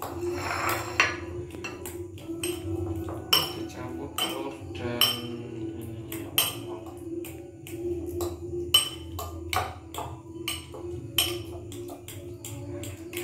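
Metal fork beating corned beef and raw egg in a ceramic bowl, clinking sharply against the bowl's side at irregular intervals, about one or two taps a second, over a steady low hum.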